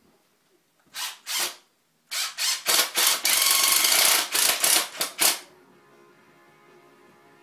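Cordless drill running into the wood of a homemade peg coat rack in short trigger pulses. Two quick bursts come about a second in, then a run of bursts with a longer continuous spell in the middle, stopping a little after five seconds.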